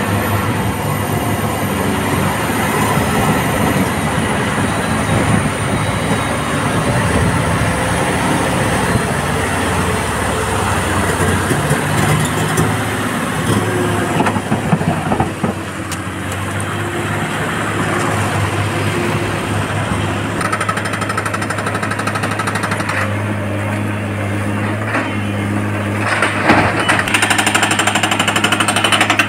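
Diesel engine of a loaded BharatBenz tipper truck running as it drives across the quarry floor. In the last few seconds an excavator's hydraulic rock breaker pounds rapidly on rock.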